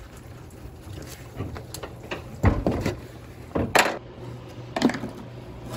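A few sharp knocks and clatters from handling engine parts and tools, over a steady low hum.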